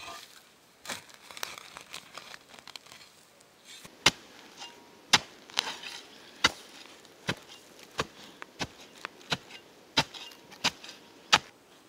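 Small steel entrenching shovel chopping and scraping into forest soil: soft scrapes at first, then sharp strikes of the blade about once a second from about four seconds in.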